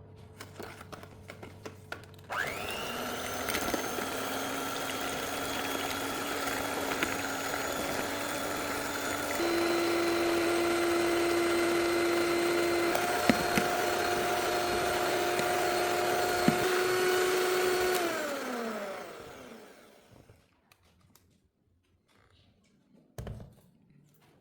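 Electric mixer beating cake batter: the motor starts with a quick rising whine and runs steadily. It is switched up to a higher speed twice, then switched off and winds down with a falling pitch. A few clicks come before it starts, and a single knock comes near the end.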